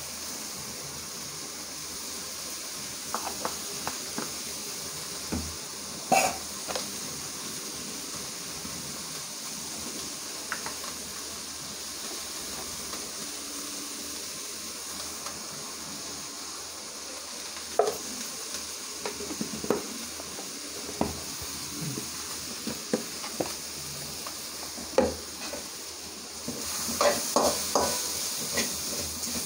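Brinjal and onion frying in oil in a steel kadai, a steady sizzle throughout. Scattered clinks of a steel ladle against the pan come through, and near the end the stirring gets busier and louder.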